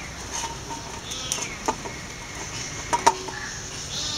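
A stainless steel bowl knocked a few times as hands pull dough from a ball inside it: sharp clicks, the loudest pair about three seconds in, leaving a short metallic ring. Faint clucking in the background.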